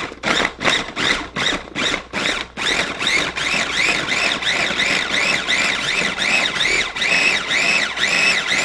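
Small Cuisinart food processor pulsed on its Chop button, chopping shallots. The motor whines up and down with each quick pulse, at first as separate short strokes, then about two or three rising-and-falling whines a second.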